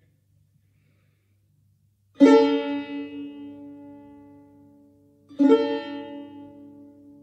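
Tar (Persian long-necked lute) plucked twice: a first note about two seconds in and a second about three seconds later. Each note rings and slowly fades.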